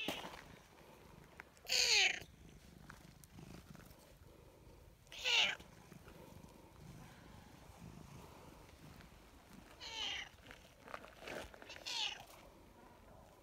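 Tortoiseshell cat meowing while being stroked: four loud short meows, each falling in pitch, spaced a few seconds apart, with a few softer calls near the end. Between them there is a faint, steady purr.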